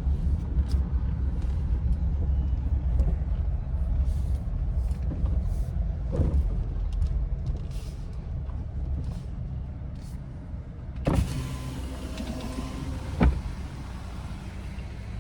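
The Gladiator's V6 engine and its low cabin rumble as the truck idles and creeps forward. About eleven seconds in the sound opens up with a power window motor running, and there are two sharp clicks.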